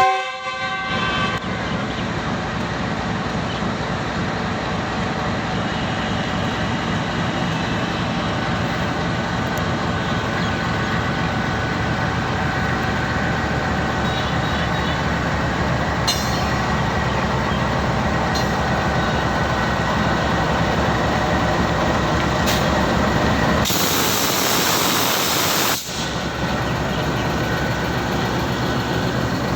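Express passenger train passing at speed: a steady, loud rumble and rapid clatter of wheels on the rails, with a louder rushing hiss for about two seconds near the end.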